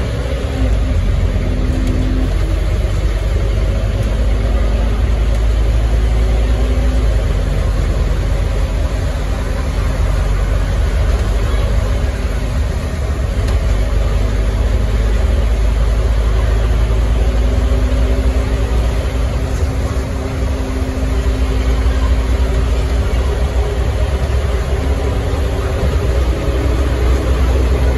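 Scania OmniCity bus on the move, heard from inside the passenger saloon: a steady low drone of diesel engine and road noise, with an engine tone that fades and returns a few times as the bus's speed changes.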